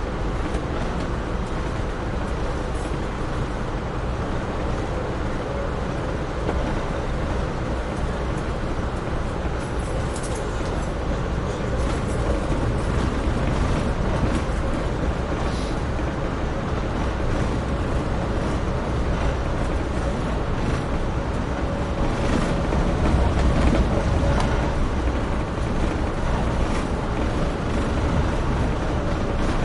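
Amtrak Northeast Regional passenger train running at speed: a steady rumble of wheels on rail with a faint, thin, steady whine and occasional light ticks, swelling a little about two thirds of the way through.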